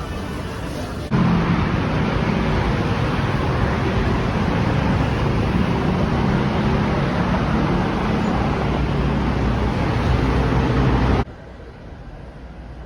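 Loud, steady vehicle noise: a low engine hum under a dense rushing noise. It starts and stops abruptly, about a second in and near the end, with quieter ambience either side.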